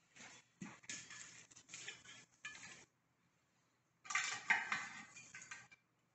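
Metal fire shovel scraping up hot coals from the hearth and tipping them onto the cast-iron lid of a Dutch oven, with gritty scrapes and metallic clinks. This puts top heat on the oven for baking. It comes in two spells with a short pause between, the second, about four seconds in, the louder.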